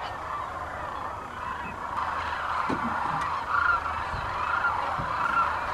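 Sandhill cranes calling in a large flock: a dense, continuous chorus of many overlapping calls, with single calls standing out about once a second in the second half.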